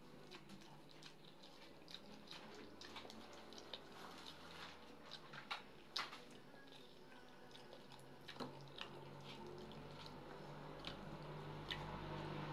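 Faint close-up eating sounds: chewing and lip smacks mixed with small irregular clicks as fingers pull apart fried fish.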